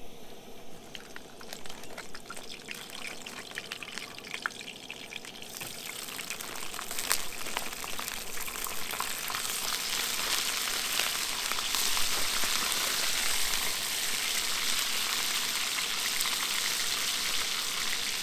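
Plastic food packet being handled with small crinkles and clicks, then food goes into a hot pan about five seconds in and starts sizzling, the frying growing louder and holding steady.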